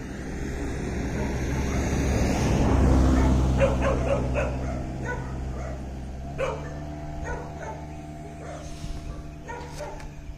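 A dog barking repeatedly in short barks from about three and a half seconds in, over the low rumble of a vehicle engine that swells to its loudest about three seconds in and then settles to a steadier hum.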